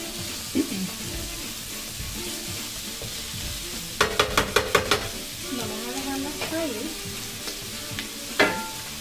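Chicken wings sizzling in oil in a hot electric skillet while being turned with tongs, searing before they are covered. About four seconds in comes a quick run of clicks from the tongs, and a single sharp clack near the end.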